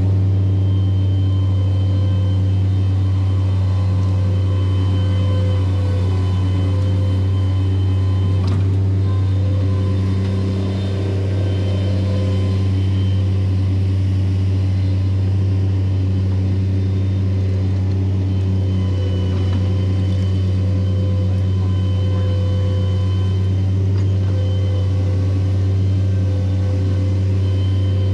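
Engine of an earthmoving machine running steadily at constant speed: a loud, even low drone.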